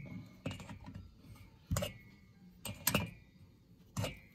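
Adjustable wrench clinking against a hex thread-chasing die on a cylinder-head exhaust stud as it is taken off and refitted between turns: about five separate metallic clicks, some leaving a short ring.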